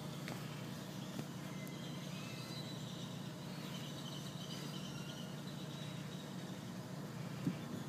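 Steady low hum of a car idling and creeping in slow traffic, heard from inside the cabin, with a short knock near the end.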